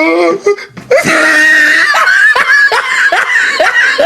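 A person laughing hard and high-pitched, in quick repeated bursts of about two or three a second.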